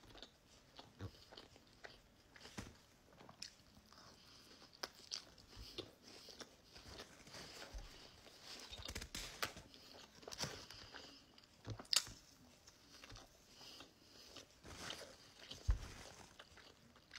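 A person chewing a mouthful of sandwich close to the microphone, with irregular small crunches and clicks and a few sharper crunches near the end.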